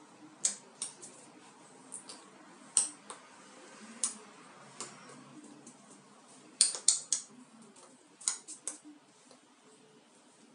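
Irregular sharp clicks and light slaps as the hands strike each other and the body while signing, about fifteen in all. The loudest quick run of them comes about two-thirds of the way in.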